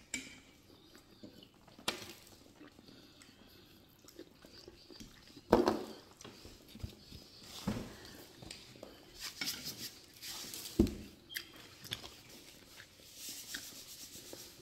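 Close-up eating noises: chewing, lip smacks and finger sucking, with a few sharp clicks, the loudest about halfway through and again near the end.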